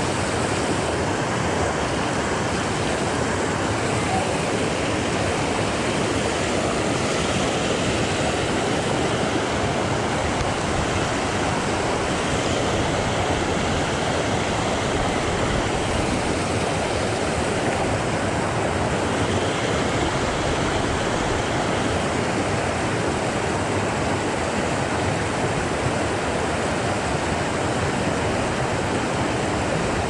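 Rocky stream rushing in a small cascade of white water over boulders right beside the microphone, a steady, even rush with no breaks.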